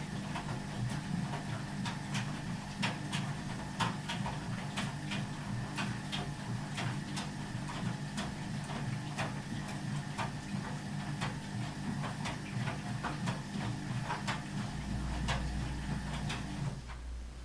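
Ardo washing machine running: a steady motor hum with frequent irregular clicks and knocks, the hum stopping abruptly near the end.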